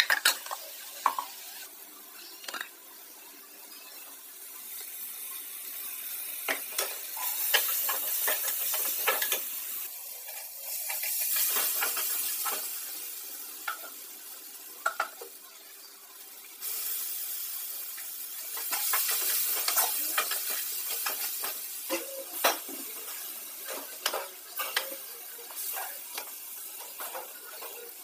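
Chopped onions and green chillies frying in an aluminium kadai, sizzling in spells that swell and fade, while a perforated steel ladle stirs and scrapes them, its metal clicking and clinking against the pan many times.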